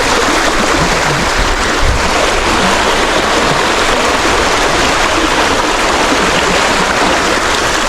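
Creek water rushing steadily and loudly, with no breaks.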